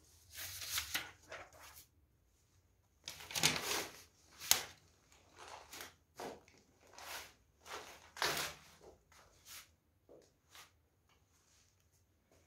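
Old papers rustling and crunching in a dozen or so irregular short bursts, as paper and debris strewn on the floor are stepped on or handled.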